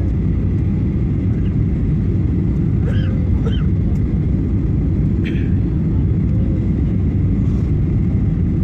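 Steady rumble of a jet airliner in flight as heard inside the cabin: engine and airflow noise from a window seat over the wing. Faint voices come through briefly a few times.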